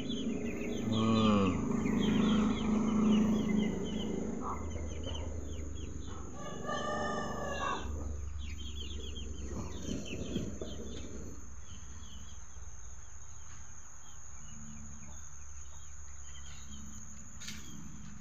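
Chickens clucking and calling in a wire coop, with a rooster crowing once about seven seconds in. The calls grow sparser toward the end.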